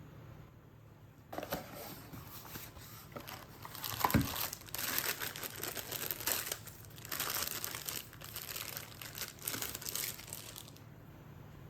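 Crinkling and rustling of something being handled for about nine seconds, with a single knock about four seconds in.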